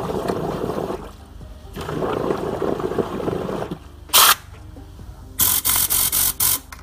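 Tornado air-driven cleaning gun with its nozzle held under water in a bucket, compressed air churning and bubbling the water in two long spells to flush dirt out of the nozzle. Near the end, with the nozzle out of the water, several short, sharp blasts of air hiss from it.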